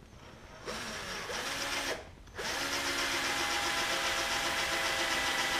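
Cordless drill drilling a rivet hole through an aluminium wing rib and its upright. There is a short burst of the motor speeding up about a second in, then from about halfway a steady run as the bit cuts through the metal.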